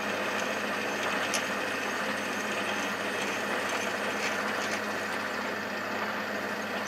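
Metal lathe running steadily with a twist drill in the tailstock chuck fed through a spinning cast iron wheel into the hole of its backing jig, giving an even motor and spindle hum with a few faint ticks.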